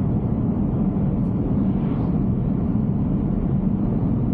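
Steady road and tyre noise from a Tesla Cybertruck cruising at highway speed: an even, low rumble that holds the same level throughout.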